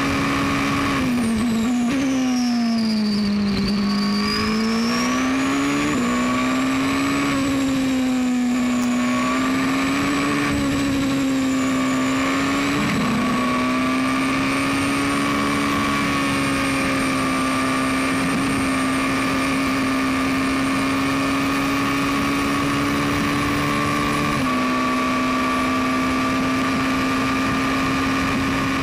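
Race car engine heard from the onboard camera, the Toyota 2.0-litre turbocharged four-cylinder of a Super Formula Dallara SF14, running at high revs. In the first few seconds the revs drop and climb with gear changes and a high whine falls and rises, then the engine holds near-steady at high revs with one gear change about 24 seconds in.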